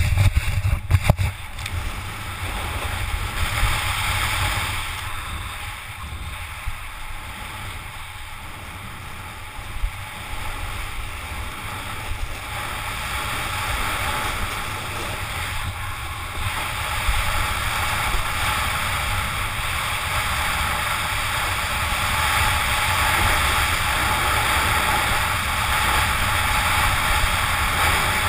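A snowboard sliding and scraping over packed groomed snow, a steady hissing scrape, with wind rumbling on the microphone. A few knocks come in the first second or so.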